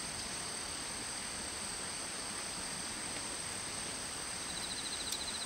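A steady, high-pitched chorus of insects, with a short run of rapid ticking near the end.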